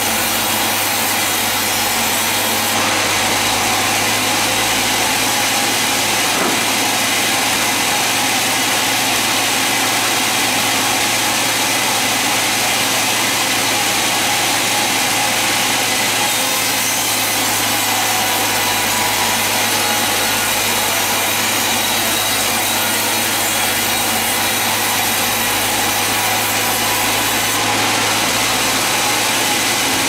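Band sawmill blade ripping lengthwise through a squared block of very hard ironwood: a steady, loud sawing noise with a constant low hum under it.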